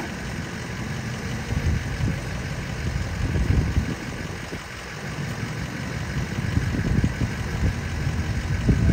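Outboard motor idling on a center-console boat as it manoeuvres at its trailer, a low, uneven sound that swells and fades.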